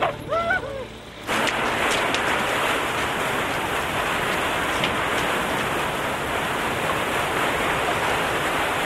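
Steady rush of falling, pouring water that cuts in suddenly about a second in and stays even throughout.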